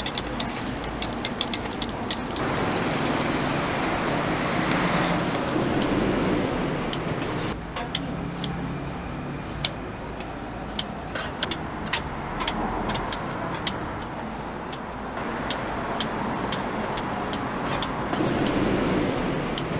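Road traffic passing, its noise swelling and fading in long waves, with many short sharp clicks on top.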